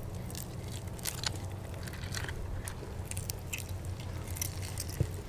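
Avocado flesh being squeezed and mashed by hand into a bowl of chicken cubes: soft wet squishes with small crackles, over a low steady hum.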